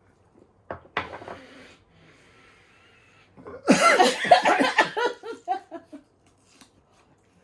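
A short, harsh exhale about a second in, right after a shot of vodka is downed, then laughter from about three and a half seconds in that trails off in shorter bursts.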